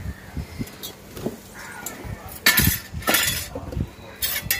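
Stainless-steel pot and steel plate clinking and knocking against each other and the tiled floor as the hot pot is lifted off the fire and set down. The loudest knocks come about two and a half to three seconds in, with another near the end.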